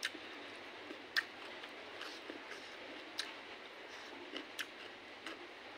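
A person chewing a mouthful of food eaten by hand, with about six sharp, wet clicks and smacks scattered through it over a faint steady hiss.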